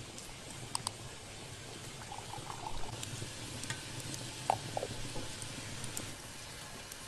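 Faint sound of tea being poured from a samovar, liquid trickling, with a few light clicks and clinks.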